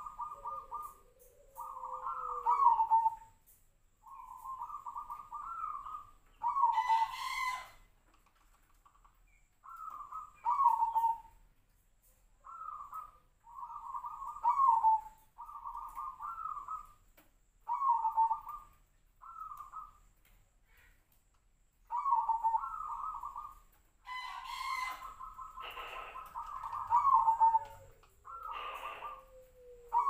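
Zebra dove (perkutut) cooing: short phrases of quick coo notes, each about a second long, repeated again and again with brief pauses. This is the unusual coo that its keeper likens to the call of the sirtu bird.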